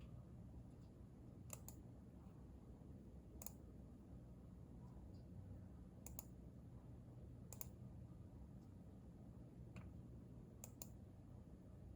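Faint, sparse clicks from a Hansung capacitive keyboard and a computer mouse: about six single or paired clicks a couple of seconds apart, rather than continuous typing. A low steady hum runs underneath.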